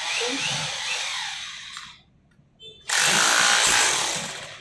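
Cheap Chinese-made rotary hammer drill with a pointed chisel bit, run in two short bursts, about two seconds and then a louder second and a half. In the second burst the bit is pressed onto a stack of bricks.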